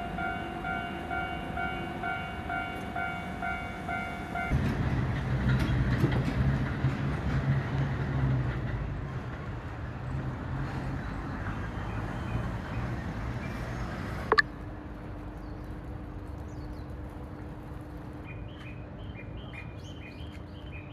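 A Japanese level-crossing warning alarm rings its electronic bell in steady pulses about twice a second, then stops about four and a half seconds in. A train then rumbles and clatters through for about ten seconds. A sharp click follows, then a low steady hum, with quick high chirps near the end.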